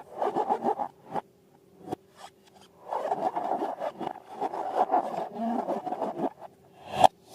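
Slime-making handling: quick rubbing and scraping strokes, then a longer stretch of dense scraping, ending in one sharp click.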